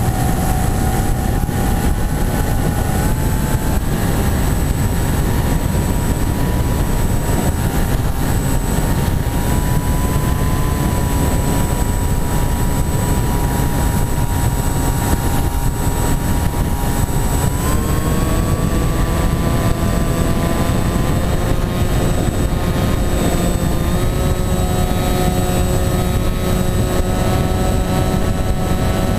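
Electric motor and propeller of a foam flying-wing model plane in flight, a steady whine under heavy wind rush on the onboard camera; the motor speeds up and its whine steps up in pitch a little over halfway through.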